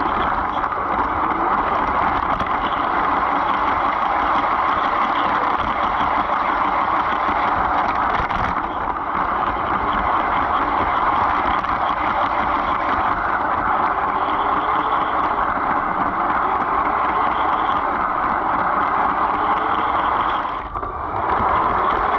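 LEGO train rolling on plastic track, heard from a camera riding inside the passenger car: a steady rattling rumble of wheels and running gear, with a faint whine that rises and falls in pitch now and then. It drops away briefly near the end.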